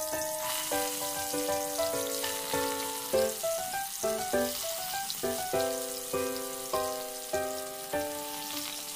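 Leaf parcels frying in hot mustard oil in a kadai, with a steady sizzle as more parcels are added. A background tune of plucked notes plays over it.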